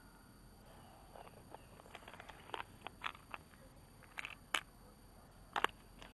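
A run of sharp plastic clicks and knocks, with a light rustle of dry leaves, as a clear plastic compartment box for finds is handled beside a dug hole. The loudest clicks come about four and a half and five and a half seconds in.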